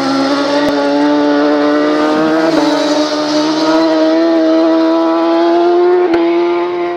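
Racing motorcycle coming through flat out. Its high-revving engine note climbs steadily as it approaches and passes about six seconds in.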